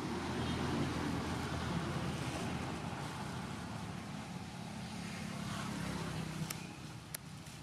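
An engine running steadily under a rushing, wind-like noise, loudest in the first couple of seconds and fading near the end, with two sharp clicks shortly before it dies down.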